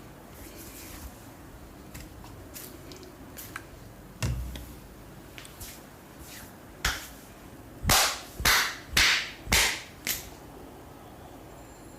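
Indian barber massage percussion: scattered faint clicks, a dull thump, then a run of sharp, loud smacks near the end, five in quick succession about half a second apart.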